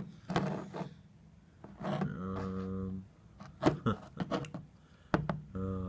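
Light clicks and knocks of metal lawn-mower carburetors being picked up and handled on a wooden table, a series of short sharp taps in the second half. A man's low steady hum is held for about a second near the middle and starts again near the end.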